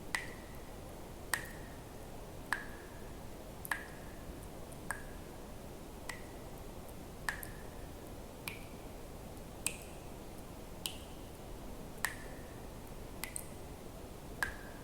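Water drops falling one at a time into water, a regular plink about every 1.2 seconds, each with a short ringing tone, a few higher-pitched than the rest, over a steady low hiss.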